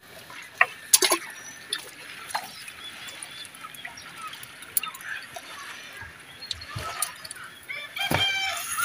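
Wet nylon gill net being lifted and pulled by hand as fish are picked out, water dripping and sloshing, with scattered sharp knocks, the loudest about a second in. A few short pitched calls sound near the end.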